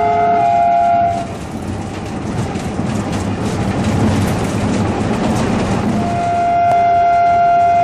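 WDM2A diesel locomotive's horn sounding a steady chord, heard from inside the cab, cutting off about a second in. The locomotive's running noise on the track fills the gap until the horn sounds again about six seconds in.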